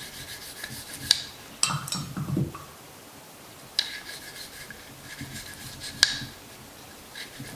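Cleaning brush scrubbing carbon out of the inside of an AR-15 upper receiver: a dry, scratchy rubbing in short strokes, with a few sharp clicks along the way.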